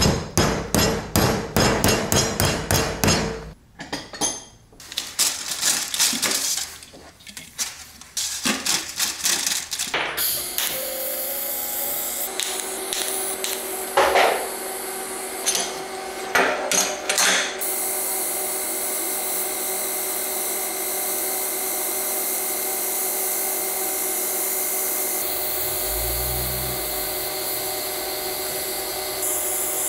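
A hammer strikes steel rectangular tubing in a quick run of blows for about the first ten seconds. Then comes a steady hiss and hum of TIG welding on the steel part, with a few clicks before it settles.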